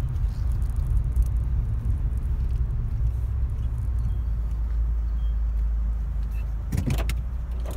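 Low steady rumble of a car driving slowly, heard from inside the cabin, with a few sharp clicks near the end.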